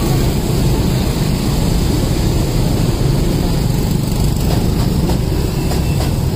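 Steady low rumble of a running engine amid street noise, even throughout.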